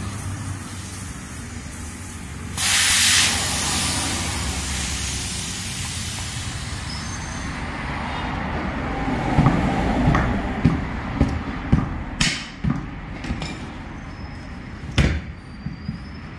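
Air hissing out of a motorcycle tubeless tyre at its valve: it starts suddenly about two and a half seconds in and slowly fades as the tyre deflates. In the second half comes a run of sharp clicks and knocks from a steel tyre lever working the tyre bead against the alloy rim.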